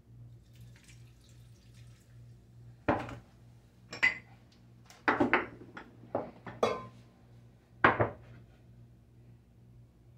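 Kitchenware being handled on a countertop: about seven sharp clinks and knocks as a drinking glass, a metal measuring spoon and a cup are picked up and set down. The knocks start about three seconds in and end about eight seconds in.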